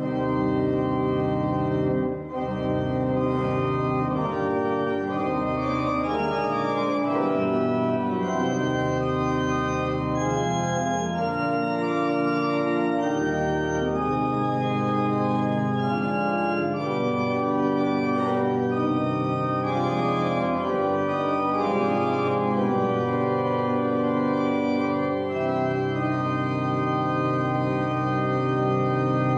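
Church organ playing a slow passage of sustained chords over deep bass notes, the harmony shifting every second or so.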